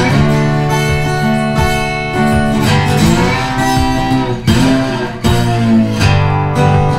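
Background music: acoustic guitar strumming and picking.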